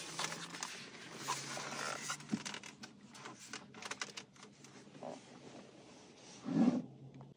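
Hands handling a loosened plastic trim panel on a microfiber cloth: rustling with many light plastic clicks and taps, and a louder dull rub or bump near the end.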